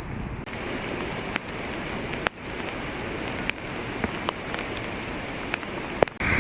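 Steady rain, with a few sharp ticks of single drops scattered through it.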